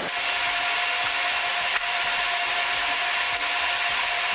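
Steady rushing air noise with a constant whine running through it, like loud cooling fans.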